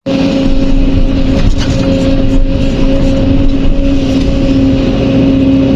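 Heavy diesel construction machinery running steadily at working speed, with a constant whine held over a low engine rumble.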